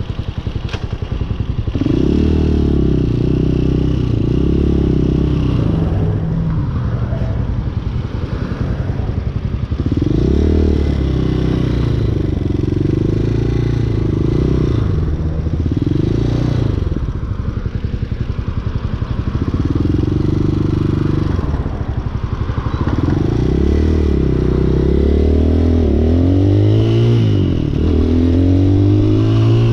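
Hawk 250 dual-sport motorcycle's single-cylinder engine running on the move, revving up and easing off several times, with a run of quick rises and drops in pitch near the end.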